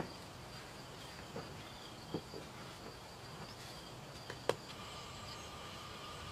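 Insects calling steadily in high, even tones, with a few short knocks of stones being set in place by hand, the loudest about four and a half seconds in.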